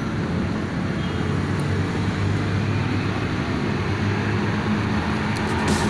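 Steady low rumble of motor vehicles, an unbroken hum with no distinct knocks or clicks.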